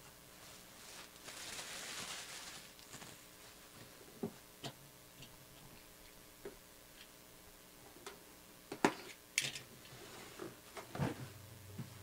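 Handling of a cardboard box: a soft scraping rustle between about one and three seconds in, then scattered light knocks and clicks, the sharpest about nine seconds in.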